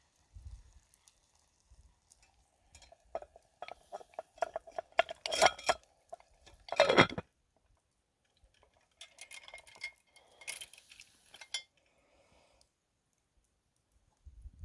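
Metal cookware clinking against a cast-iron Dutch oven: a run of knocks with a ringing metallic tone, loudest about five and seven seconds in, then lighter scraping and rattling around nine to eleven seconds.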